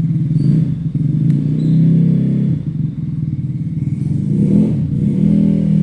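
A motor engine running steadily and loudly, with a low, pulsing drone.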